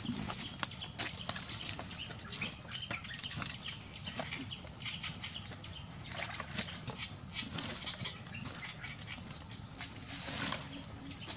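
Open wood fire crackling with irregular pops and snaps, while sticks are pushed and scraped through the embers.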